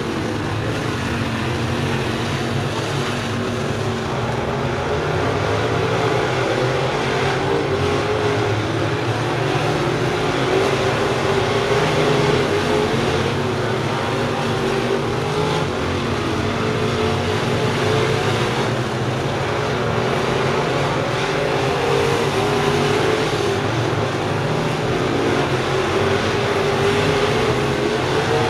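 A field of dirt-track crate late model race cars with crate V8 engines running at speed around the oval. It is a continuous, overlapping engine drone whose pitch wavers up and down as the cars lap.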